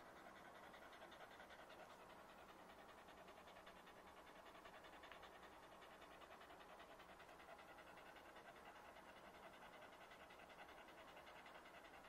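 A corgi panting rapidly and evenly with its tongue out, faint and steady.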